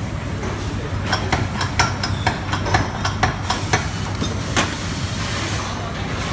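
Steady low hum of workshop machinery. Over it, between about one and four and a half seconds in, comes an irregular run of about a dozen sharp clicks and taps.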